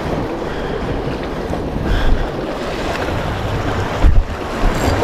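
Sea waves washing and splashing against shoreline rocks, with wind blowing on the microphone. A brief loud low thump about four seconds in.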